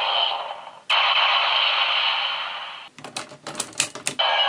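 Electronic sound effects from a Gabrevolver toy's small speaker: a hissing effect that cuts off just before a second in, a second one that fades out over about two seconds, then a quick run of sharp clicks, and the effect starting again near the end.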